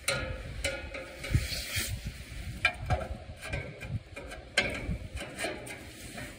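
Irregular clicks and scraping as metal dash parts and bolts are handled on a tractor, with wind rumbling on the microphone.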